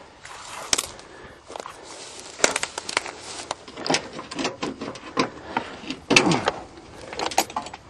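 Irregular clicks, clunks and scrapes of hands working metal parts on an old van while fitting a battery, with a brief falling sound about six seconds in.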